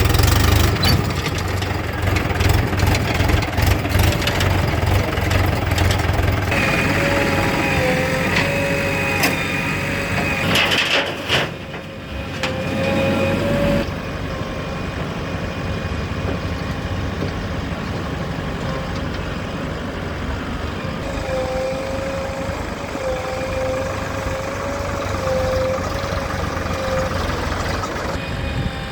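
Diesel engines of working farm tractors and a backhoe loader running, with a wavering whine over the engine noise. The sound changes abruptly several times.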